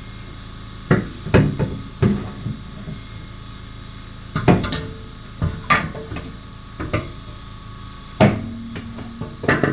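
Irregular knocks and clunks, about nine spread unevenly, from a muffler and exhaust pipe being bumped and worked onto its rubber hangers under a car.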